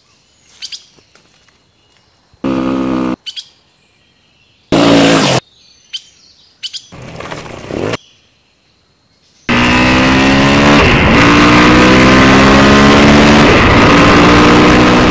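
Birds chirping, then an engine revving in short loud bursts and, from about two-thirds of the way in, running loud and steady for several seconds.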